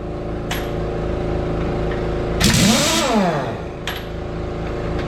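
Heavy diesel truck engine running steadily, revving up and falling back once about two and a half seconds in, with a couple of short clicks.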